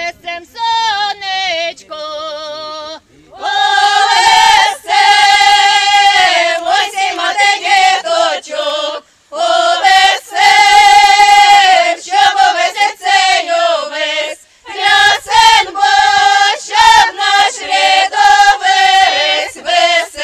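A choir singing, women's voices to the fore, in long held phrases. It starts softer and grows fuller and louder about three seconds in, with brief pauses between phrases about nine and fourteen seconds in.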